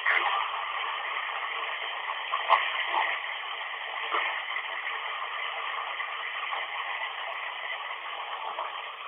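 Steady hiss of running water, thin and tinny with no deep or very high sound in it, with a few brief louder blips near the start and around three to four seconds in.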